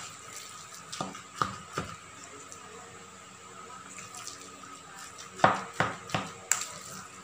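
A spoon stirring a wet raw ground-pork mixture in a stainless steel bowl: soft wet squelching with sharp knocks and scrapes of the spoon against the bowl, a few about a second in and a louder run after five seconds.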